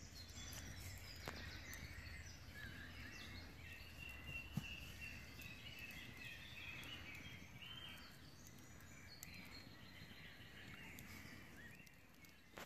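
Faint distant woodland birdsong over a low rumble, with the odd soft click from a campfire burning down to embers and a single sharper pop about four and a half seconds in.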